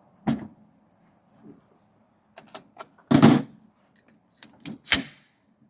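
Metallic clicks and clacks from an AR-10 rifle being handled after firing: a few light clicks, then two louder clacks about three and five seconds in.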